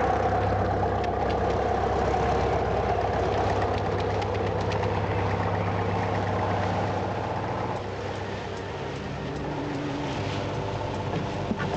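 A boat's engine running steadily with a fast, even chug. It drops away about eight seconds in.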